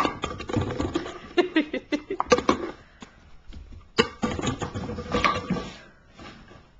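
A small puppy playing on a hardwood floor: a busy run of scrabbling, clicks and knocks, a short lull, then a sudden fresh burst about four seconds in that fades out near the end.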